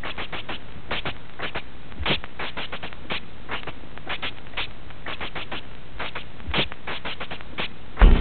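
Steady hiss dotted with irregular crackling clicks, a few a second. Music with a low drone comes in near the end.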